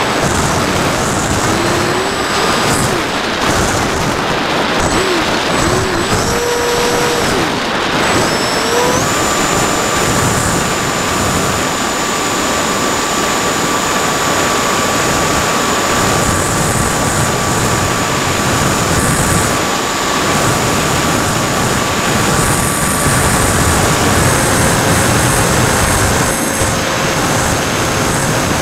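Battery-powered RC model plane in flight: steady wind rush over the airframe with a thin motor whine that steps up in pitch about a third of the way in and drops back near the end as the throttle changes.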